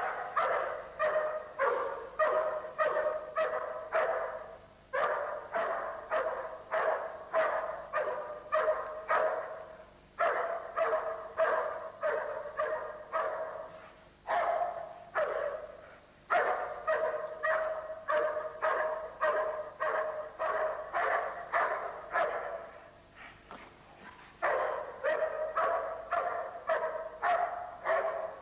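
A large dog barking steadily and rhythmically, about two to three barks a second, in runs of several seconds with short breaks, typical of a protection dog's bark-and-hold while guarding a helper.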